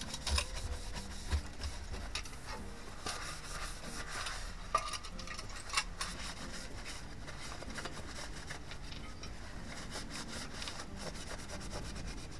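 Paper towel rubbing over sandblasted tinplate toy-truck parts as they are wiped clean with acetone, with light taps and scrapes of the metal pieces in the first half.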